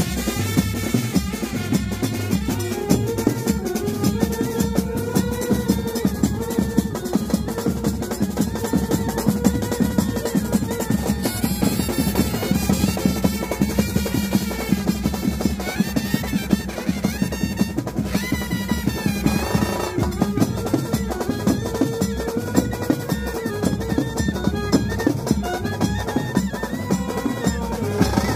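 Loud dance music with a fast, dense drum beat and a melody line running over it.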